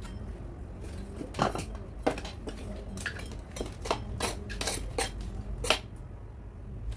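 Metal utensil scraping and knocking across a steel pot lid, sweeping off ash and spent coals, in a quick series of sharp scrapes and clicks from about a second in until near the end.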